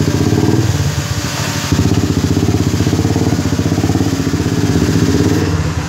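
Honda CBR1000RR Fireblade's inline-four engine idling through an aftermarket SC Project exhaust, a steady pulsing note with a brief dip in level just under two seconds in.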